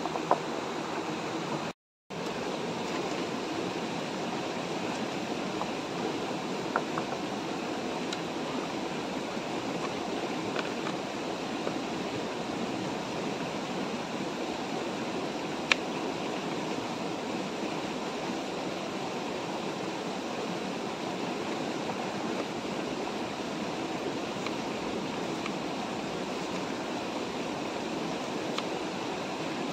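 Shallow river water rushing steadily over rocks, with a few faint clicks of a knife against a plastic chopping board. The sound cuts out completely for a moment about two seconds in.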